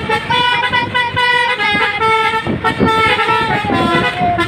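Telolet horn, a multi-tone musical air horn, playing a tune of held notes that step up and down in pitch, with a falling glide near the end.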